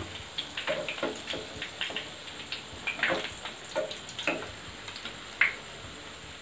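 Hot oil in a kadai crackling with irregular, scattered pops as anchovy fritters finish deep-frying, with one louder crack about five seconds in. The bubbling has died down to these pops, a sign that the fish fritters are cooked through.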